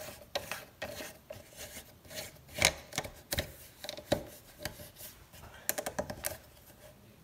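Plastic faucet handle parts being handled and fitted onto the valve by hand: irregular light clicks and knocks with some rubbing, the loudest knock about two and a half seconds in.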